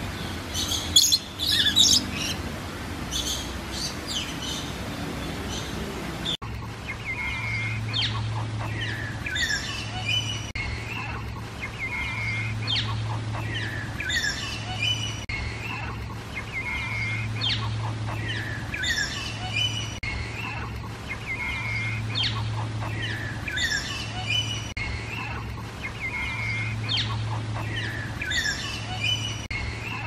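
Birds chirping and calling. About six seconds in the sound changes abruptly to a phrase of chirps and calls that repeats every four to five seconds over a low steady hum.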